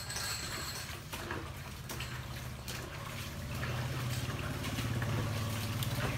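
Water sloshing and splashing in a plastic bucket as a cat is washed in it, over a steady low hum that grows louder about two-thirds of the way through.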